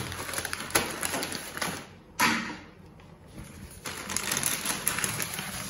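Plastic grocery packets and a carry bag rustling and crinkling as they are handled, with a louder rustle about two seconds in.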